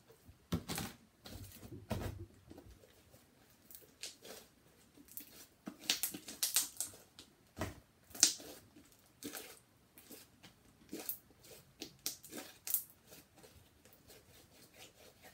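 Hands kneading, stretching and pulling apart a soft white soap-and-shaving-cream slime: irregular sticky crackling and tearing sounds, with a few soft thumps.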